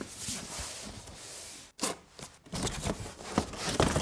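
Cardboard packaging of a laptop being unpacked: box parts rubbing and sliding against each other, a sharp knock a little under two seconds in, then a run of light knocks and rustles as inner boxes are lifted out.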